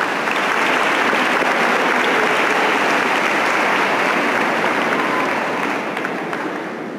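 Crowd applauding: a dense burst of clapping that swells right at the start, holds steady, then dies away near the end.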